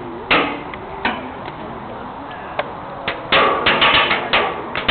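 Airsoft guns firing: a few scattered single sharp cracks, then a quick run of loud shots close together in the second half.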